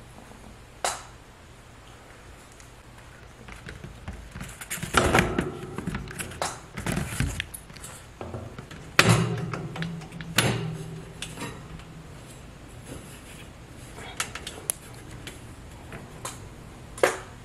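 Pleated HVAC air filter being slid into a return-air vent and the hinged vent grille pushed shut and latched: several seconds of rustling and scraping, then sharp knocks and a few clicks near the end.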